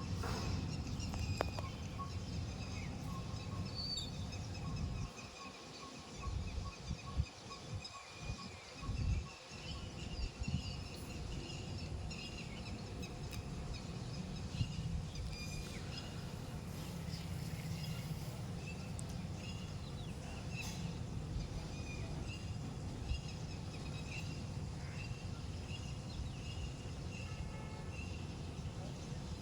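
Wind buffeting the microphone in gusts, briefly easing and returning several times about five to ten seconds in, with birds chirping throughout.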